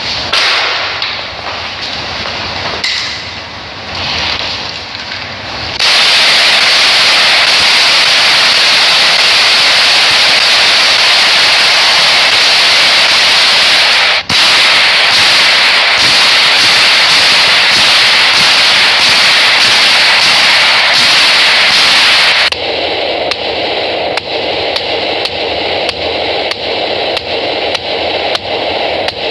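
AK-47 rifle fired shot after shot, about two a second, at an armored SUV's bullet-resistant windshield, the very loud reports echoing and distorting. Near the end the shots are heard from inside the vehicle's cabin, quieter, as the rounds strike the glass in front of the driver.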